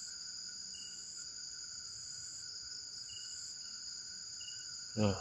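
Steady chirring of crickets and other night insects, with a short, high whistled note about four times, irregularly spaced. The whistling is taken for the call of an owl.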